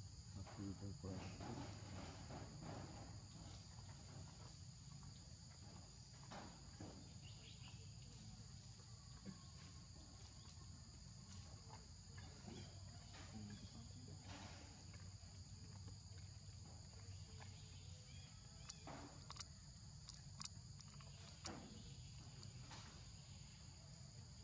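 Faint, steady high-pitched insect drone with two even tones, with a few soft clicks scattered through it.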